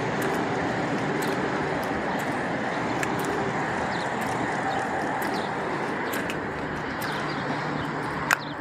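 Steady outdoor traffic noise, an even rumble with a faint engine hum, with scattered light ticks and one sharp click near the end.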